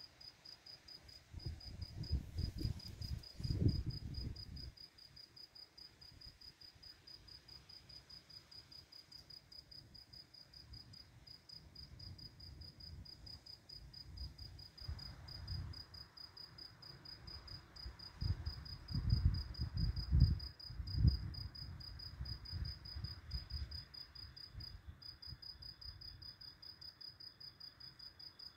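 Crickets chirping steadily in a high, even pulse, with a second, lower-pitched cricket joining near the end. Low rumbles of distant thunder swell and fade twice, about two seconds in and again about two-thirds of the way through.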